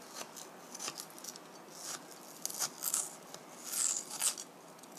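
Small knife cutting into thick raw potato slices on a cutting board: short, crisp slicing and scraping strokes that come in several clusters, the loudest near the end.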